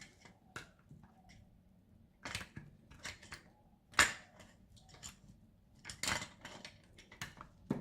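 Hard plastic parts of a Fluke 17B+ multimeter being handled and pushed together: a scatter of clicks, knocks and scrapes, with one sharp click about four seconds in.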